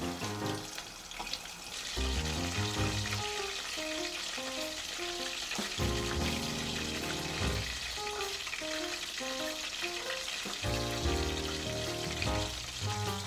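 Starch-coated chicken pieces deep-frying in hot oil in a small pot: a steady sizzle that grows denser about two seconds in. Background music plays over it.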